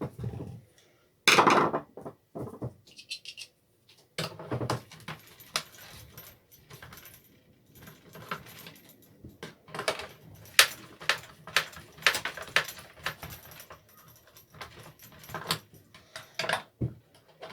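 Hand tools and small metal parts clinking, rattling and knocking irregularly while a petrol multi-tool engine is worked on, with a louder knock about a second and a half in.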